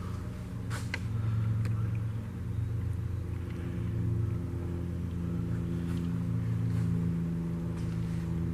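A steady low mechanical hum, with a couple of light clicks in the first two seconds.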